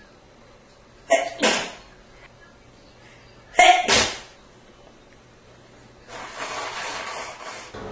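A man sneezing twice, about two and a half seconds apart, each sneeze in two quick bursts. Near the end he blows his nose for nearly two seconds.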